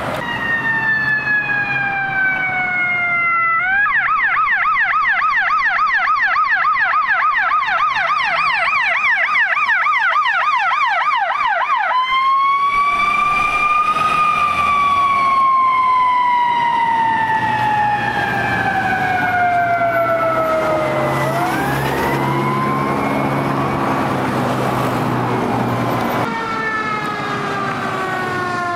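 Electronic sirens of a Los Angeles County fire paramedic squad truck responding: a falling wail, then a fast yelp for about eight seconds, then a slow wail that rises and falls again. A low steady hum runs under the siren in the later part.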